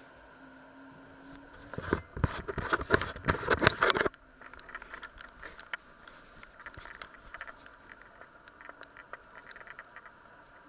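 Handling noise as the camera is picked up and moved: about two seconds of loud rubbing and knocking on the microphone, then faint scattered clicks and rustling.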